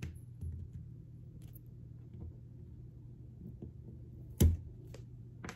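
Faint rustling and handling noise over a low steady hum as an adhesive Command strip is worked off a wall, with one sharp knock about four and a half seconds in.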